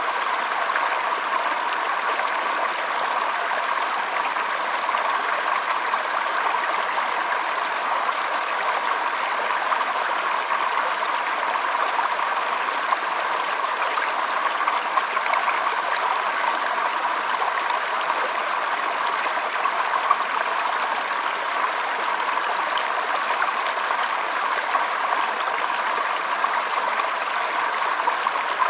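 Water flowing steadily, an even rushing sound that never pauses or changes.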